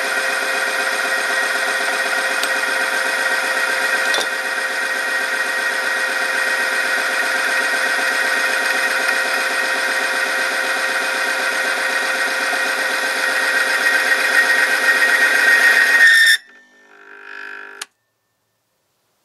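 Oil film friction testing machine running under load, its electric motor driving the test contact in engine oil: a steady grinding whine with a strong high tone. It grows louder over the last couple of seconds, then cuts off suddenly near the end as the machine stalls, the sign that the oil film has torn under the weights. A fainter hum follows for about a second and a half before it stops.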